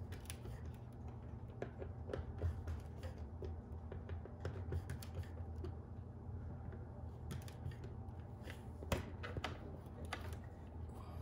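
Scattered light plastic clicks and taps as hands adjust a PetSafe dog door's plastic flap and frame, with one sharper click about nine seconds in, over a steady low hum.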